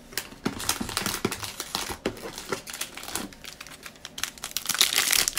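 Crinkly plastic wrapper of a trading-card cello pack being handled and worked open by hand: a rapid run of crackles and clicks, louder near the end.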